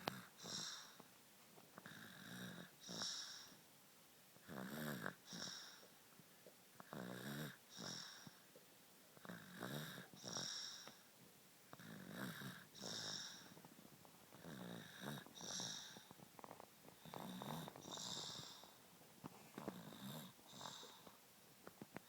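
Sleeping baby snoring, a rhythmic in-and-out snoring breath about every two and a half seconds.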